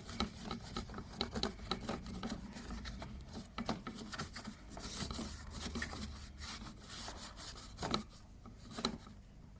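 Scraping and rubbing in quick, irregular strokes as dust and grass are cleaned off the self-propel drive gear area of a lawnmower, with two louder knocks near the end.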